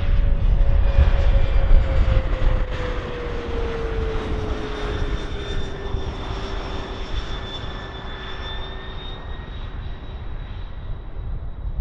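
Airliner's engines passing close by: a loud rumble that fades through the clip, with an engine tone that drops in pitch a few seconds in as the aircraft goes past.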